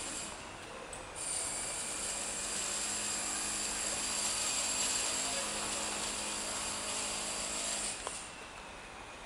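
City street ambience with a steady motor hum, which drops away about eight seconds in.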